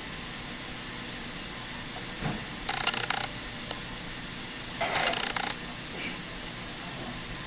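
Steady background hiss with three brief rustling handling noises, from gloved hands and dental pliers working a retraction cord out from around a tooth on a plastic typodont.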